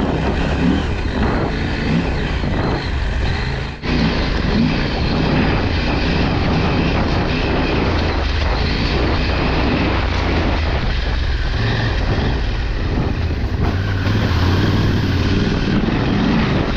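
KTM 890 adventure motorcycle's parallel-twin engine running as it is ridden up a rough, wet dirt track, the throttle varying over the uneven ground. There is a brief drop-out about four seconds in.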